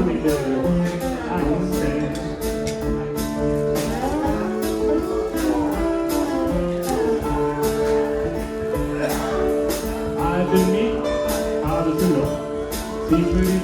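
Two guitars playing together: a rhythm guitar keeps a steady picked or strummed pattern while a slide guitar plays a melody that glides between notes.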